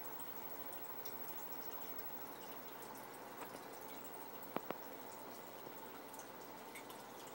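Aquarium water trickling and dripping, a steady splashing hiss with small pops and two sharp drip-like clicks close together about four and a half seconds in.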